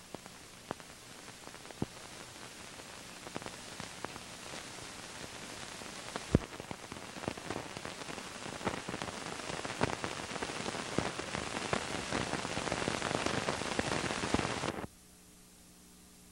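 Crackling surface noise of a worn film soundtrack, dense with sharp pops and clicks, growing steadily louder and then cutting off abruptly near the end.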